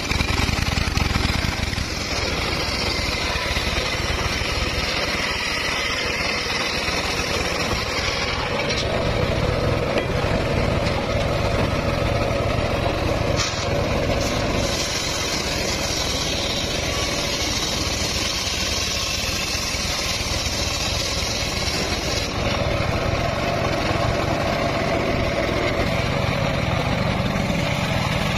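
Homemade circular sawmill running steadily, its large blade ripping a log lengthwise into planks.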